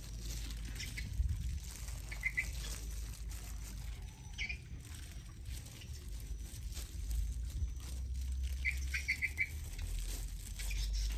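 Soft rustling of hands working loose soil while seedlings are set out. A small bird chirps several quick high notes at a time, four times over.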